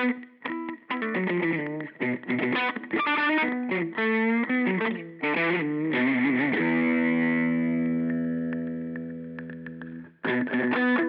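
Electric guitar through a Jed's Peds Brain Bleach fuzz pedal playing a choppy, heavily distorted riff, with a bent note about four seconds in. Then a held chord rings and fades for about three seconds, is cut off, and the riff starts again near the end.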